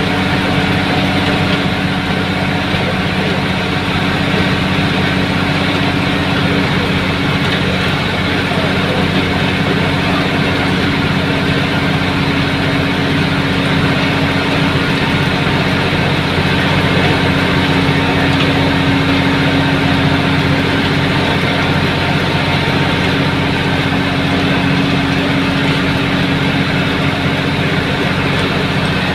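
Tata bus's diesel engine running steadily at highway speed, heard from inside the driver's cab: a constant low engine hum over road and wind noise.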